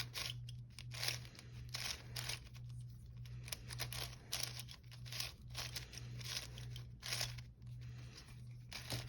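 Plastic layers of a 7x7 speed cube being turned by hand: short scratchy clacks, irregular, about one or two a second.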